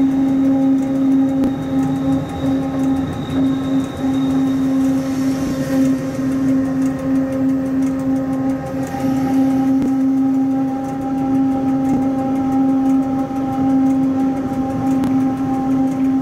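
Rhaetian Railway Ge 6/6 II electric locomotive under way, heard from inside its cab: a steady electric hum with several overtones over the constant running rumble of wheels on rail.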